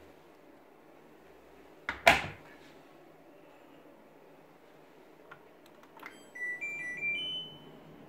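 Front-loading LG F12B8ND washing machine door slammed shut with a sharp double knock about two seconds in. Near the end, a click of the power button and then the machine's start-up melody: a short tune of electronic beeps stepping upward and holding the top note.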